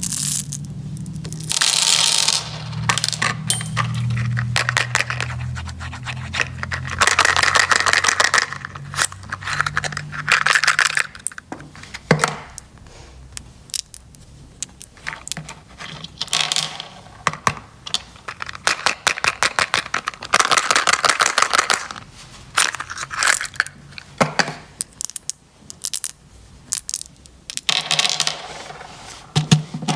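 Plastic candy wrappers being torn open and crinkled close up, with many sharp clicks, taps and rustling tears in uneven bursts.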